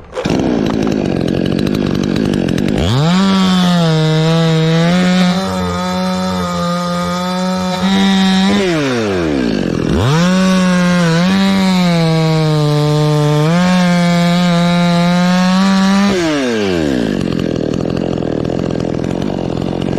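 Two-stroke chainsaw starting and idling, then revved up to full speed twice, each time held for about five or six seconds with brief dips in pitch before dropping back to idle.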